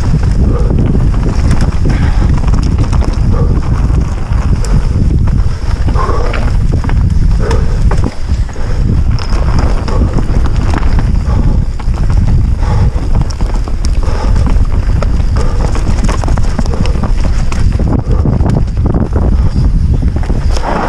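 Wind rushing over a helmet-mounted camera's microphone on a fast downhill mountain bike run, with tyre rumble on dirt and the knocks and rattles of an Orbea Rallon full-suspension bike over rough ground.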